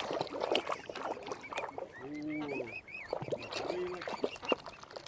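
Water birds calling amid scattered clicks and small splashes: a quick run of about six high peeps, about five a second, comes about two seconds in, with two short low calls around it.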